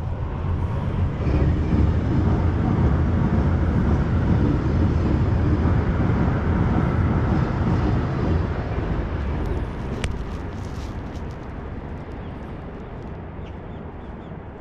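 A vehicle passing close by: a low rushing noise that swells over the first two seconds, holds, then fades from about eight seconds in. A single sharp click about ten seconds in.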